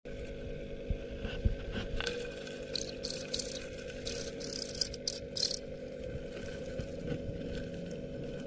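Cricket chirping: a run of short, very high-pitched bursts between about three and five and a half seconds in, over a steady low hum.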